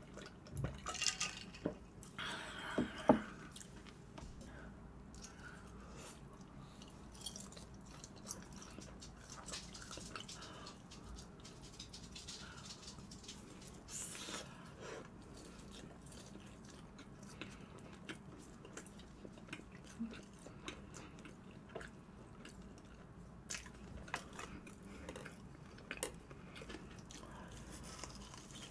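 Close-miked eating sounds: a few swallows from a drink in the first three seconds, then quiet chewing with scattered soft clicks of chopsticks.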